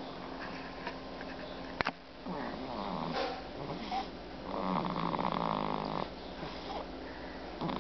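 Snoring: three rasping, fluttering snores in a slow breathing rhythm, the longest and loudest about five seconds in. A single sharp click sounds just before the first snore.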